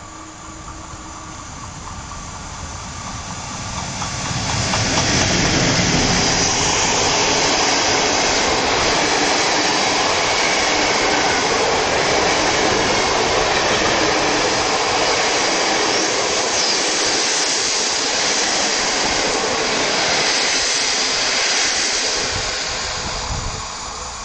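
Passenger train hauled by an EP09 electric locomotive passing close at speed: the sound builds as it approaches, turns into a loud, steady rush of wheels on rail about four seconds in as the locomotive goes by and the coaches stream past, then falls away near the end as the last coach passes.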